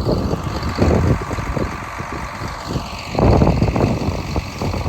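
Wind buffeting the microphone in irregular gusts, the strongest a little past halfway, over the steady hum of a running engine.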